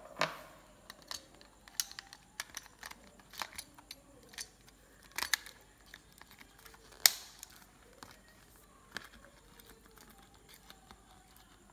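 Sparse clicks and light handling noises of a battery-powered handheld milk frother being worked loose from its cardboard packaging card, with the sharpest click about seven seconds in. The frother's motor is not running.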